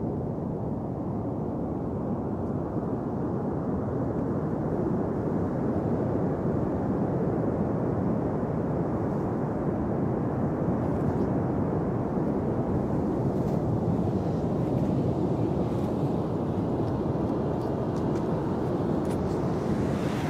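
Steady rumble of ocean surf and wind noise on the microphone, with a few faint ticks in the second half.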